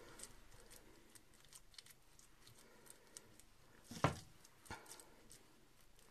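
Faint sticky squishes and small clicks of raw minced meat being pressed by hand into a hollowed red bell pepper, with a louder squish about four seconds in as a hand scoops more mince from the bowl, and a smaller one shortly after.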